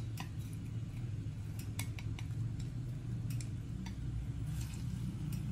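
Sliced shallots starting to fry in oil in a nonstick wok: scattered small pops and crackles over a steady low hum.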